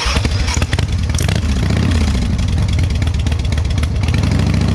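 Harley-Davidson V-twin motorcycle engine, just started, running with its revs rising and falling over the first couple of seconds, then settling into a steady idle. The stator connection has just been repaired, and at this idle the charging system is putting out about 14 volts.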